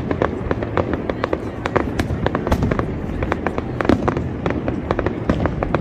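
Aerial fireworks display: a dense, irregular run of sharp bangs and crackles from shells bursting, several a second.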